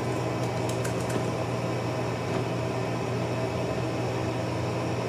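Steady low hum, with a few key clicks from a MacBook Air's keyboard in about the first second as a password is typed.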